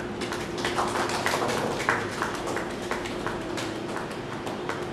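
Scattered handclapping from a small audience: irregular claps, thickest in the first couple of seconds, then thinning out.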